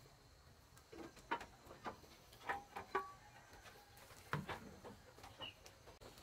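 Faint, scattered clicks and rustles of a nylon fishing net being handled and shaken, with a soft knock about four and a half seconds in.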